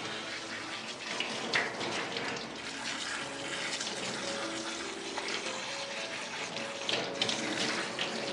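Water running steadily from a handheld shower sprayer, splashing on a dog's wet coat and into a stainless steel grooming tub as the shampoo is rinsed out.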